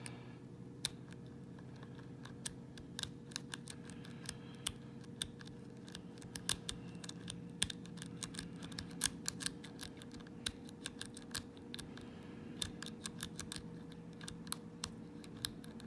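A lock pick raking the pins inside an old brass Corbin padlock, with tension on the plug: a run of small, irregular metallic clicks and scratches as the pins are bounced, over a faint steady hum.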